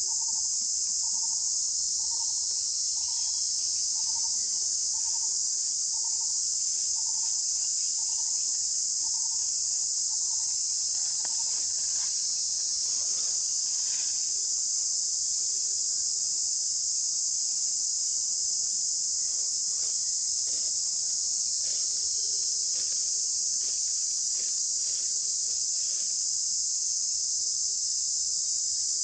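Steady insect chorus, a continuous high-pitched shrill drone at an even level throughout. Under it, a faint short note repeats about every two-thirds of a second for the first ten seconds or so, and a few faint clicks come in the second half.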